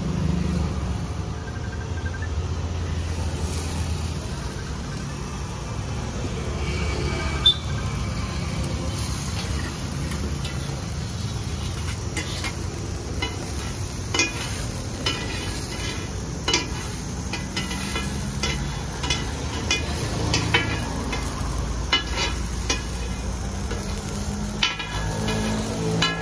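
Street-food cooking on a hot griddle: a light sizzle under the clink and scrape of a metal spatula. The sharp taps start about a third of the way in and come often in the second half.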